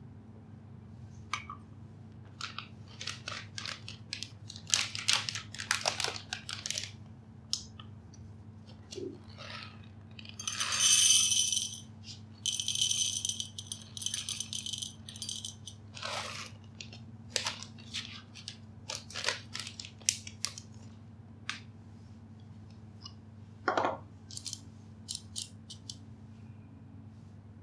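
Scattered clicks, taps and rattles of small hard objects being handled, with a louder rattling burst about ten seconds in, over a steady low hum.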